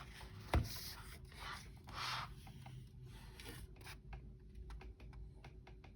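Soft rustling and handling noises: a short knock about half a second in, a few rustles over the next two seconds, then faint small clicks.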